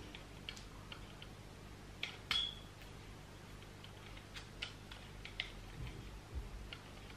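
Faint, scattered clicks and taps of a handheld three-axis camera gimbal being handled and its arm turned, with one sharper clink that rings briefly about two seconds in.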